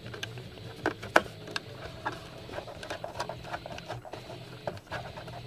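Screwdriver backing screws out of a thin black sheet-metal case: irregular small clicks and scrapes of metal on metal, over a faint steady low hum.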